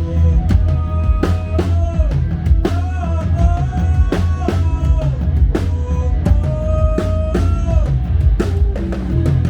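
Rock band playing amplified: drum kit with kick and snare strikes about twice a second, heavy bass, and long held melodic notes over the top.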